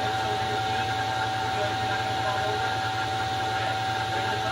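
A shop power tool running steadily, a constant drone with a high whine and a low hum, with faint voices underneath.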